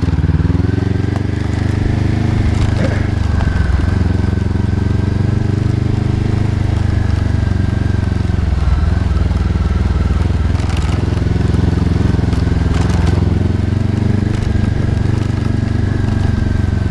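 Honda CB500X's 471 cc parallel-twin engine running as the bike is ridden along a dirt track, its pitch rising and falling a little with the throttle. A few short sharp knocks cut through it.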